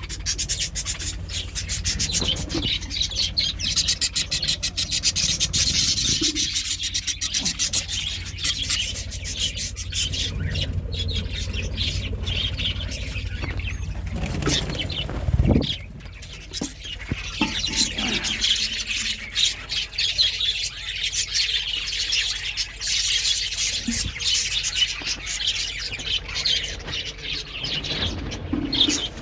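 A flock of budgerigars chattering and chirping continuously, with some wing flapping. A dull bump about halfway through, over a steady low hum.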